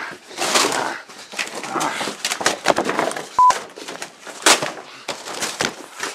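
Cardboard packing being ripped and torn off a fridge in a series of rough tearing and crumpling bursts, with one short electronic beep a little over halfway.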